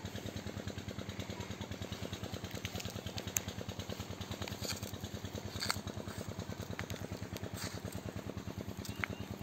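Small homemade diesel engine running steadily with a fast, even beat of firing pulses, driving a bore-well water pump. A few sharp clicks sound over it.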